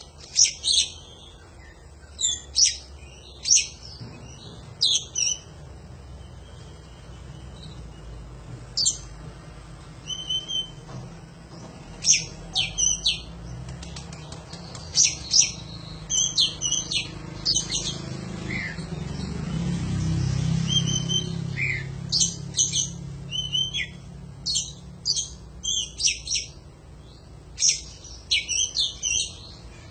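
Oriental magpie-robin (kacer) singing: short clusters of sharp, high chirps and whistles, repeated every second or two. A low rumble underneath grows louder near the middle.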